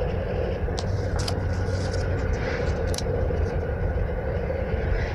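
Steady low rumble of a car heard from inside the cabin, engine and road noise, with a few light clicks about a second in and around three seconds in.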